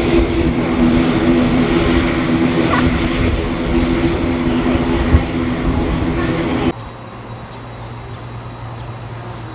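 Aircraft engines running steadily, a loud sound with a strong low hum, cut off abruptly about two-thirds of the way in. After that only a quieter steady low hum remains.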